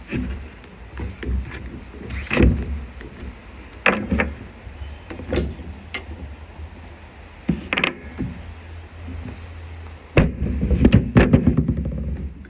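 Scattered knocks and clicks of tools and plastic saw-housing parts being handled, with a denser rattling clatter about ten seconds in.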